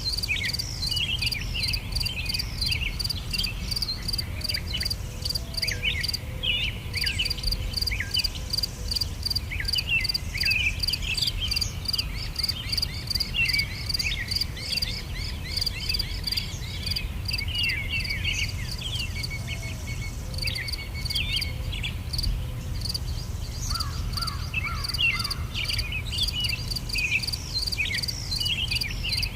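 Natural ambience: many birds chirping in quick sweeping notes over a steady, rapidly pulsing high insect trill and a low rumble.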